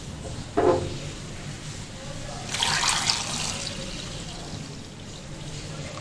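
Water poured from a jug into a steel saucepan of whole tomatoes: a loud splashing pour for about a second, then a thinner trickle running on. A short knock comes less than a second in.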